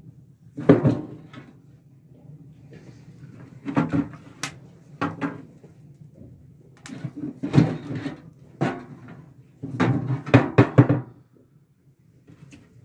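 Pieces of firewood knocking and clattering against a metal wood-burning stove as it is loaded, in a string of sharp knocks with short pauses, the densest cluster near the end.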